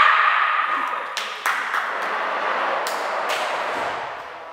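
Cheering and clapping after a point is won in a table tennis match: a loud shout dies away, then applause with a few sharp claps that fades out near the end.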